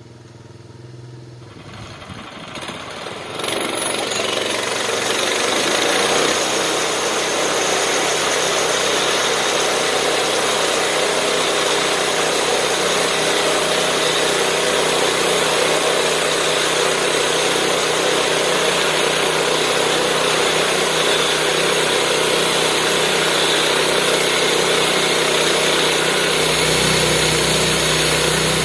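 Homemade bandsaw sawmill's small gas engine comes up to speed a few seconds in and then runs steadily while the blade cuts through a log. A lower hum joins near the end.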